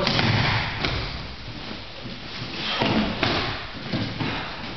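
Bodies thudding onto a padded training mat as pairs practise jujitsu throws and takedowns: several separate dull impacts over the rustle of grappling.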